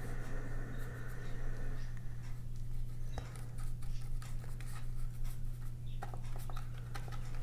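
Paintbrush working acrylic gouache onto sketchbook paper: soft scratchy strokes and light dabs come one after another, over a steady low hum.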